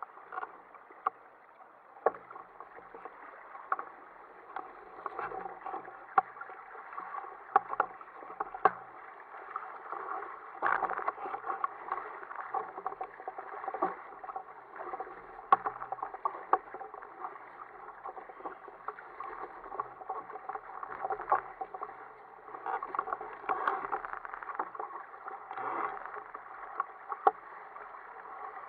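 Choppy sea water splashing and slapping against the hull of an Ocean Kayak Prowler 13 under sail, with frequent sharp knocks and slaps. The sound is muffled and continuous.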